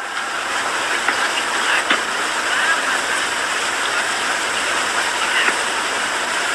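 Steady rushing background noise, with a few faint clicks scattered through it.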